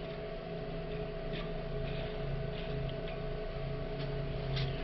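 Steady electrical or machine hum in a machine shop, with a few faint light clicks of small brass parts being handled at the lathe.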